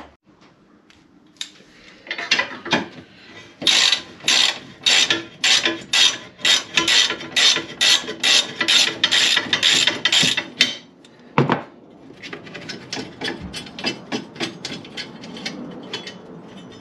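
Socket ratchet wrench clicking in repeated strokes, about two a second, as a bracket bolt is undone. After a short break near the middle, the clicking comes back quicker and lighter.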